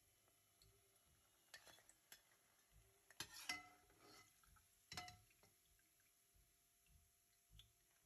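Perforated metal skimmer clinking and scraping against a pot while lifting fried plantains out of oil: a few faint clinks with a short metallic ring, the loudest about three and a half seconds in and another at five seconds.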